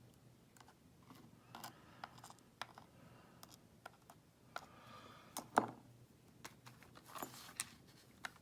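Scattered small clicks and light taps as the tiny pins and parts of a disassembled lock cylinder are handled, with one sharper tap about five and a half seconds in.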